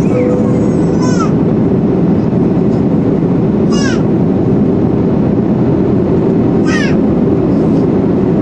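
Steady, loud engine and airflow noise heard inside the cabin of an Airbus A330-200 on its descent. Three short high-pitched falling squeaks of unknown source come about three seconds apart over it.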